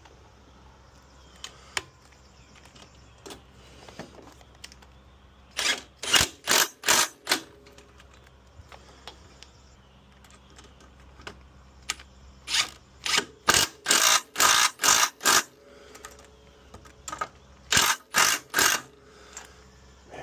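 Impact driver run in short trigger bursts to snug down screws: a quick run of about four bursts some six seconds in, a longer run of about eight from twelve to fifteen seconds, and three more near the end.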